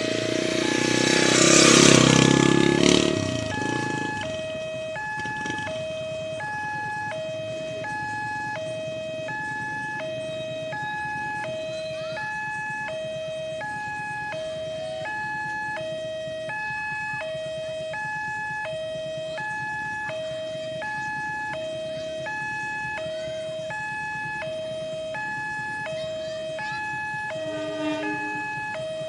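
Railway level-crossing warning alarm sounding a repeating two-tone electronic signal, a lower and a higher tone alternating about once every 1.4 s, warning of an approaching train. A loud rush of noise, as of a vehicle passing close by, fills the first few seconds.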